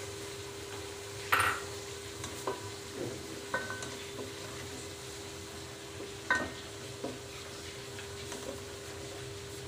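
A spatula stirring yogurt into tomato purée in an aluminium pot, scraping and knocking against the pot's side several times, with a brief ring from the pot; the loudest knock comes about a second and a half in.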